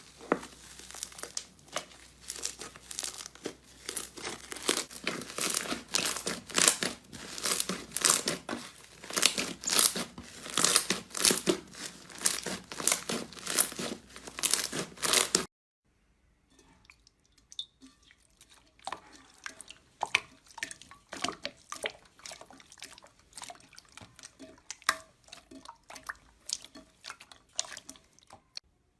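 Slime being squeezed and pressed by hand, with dense crackling and crinkling. It cuts off suddenly about halfway through, and quieter, sparser sticky clicks and pops follow.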